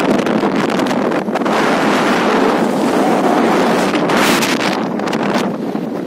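Loud wind buffeting a phone microphone on a moving open vehicle, with a couple of sharper gusts about four and five seconds in.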